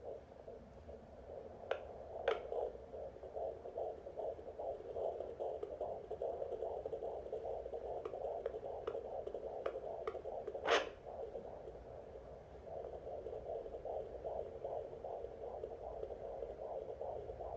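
Handheld fetal Doppler's speaker playing a fast, even run of whooshing heartbeat pulses, which the user takes for the baby's heartbeat coming through nice and strong. The beat weakens briefly about twelve seconds in. Scattered clicks and one louder knock a little past the middle come from the probe being moved on the belly.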